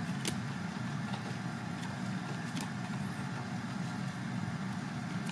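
A steady low hum of background noise, with a few faint clicks as basketball trading cards are flipped by hand.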